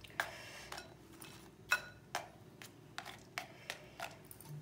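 A plastic serving spoon lightly tapping and clicking against a glass bowl of rice, about ten small taps at an uneven pace, the loudest about a third of the way in.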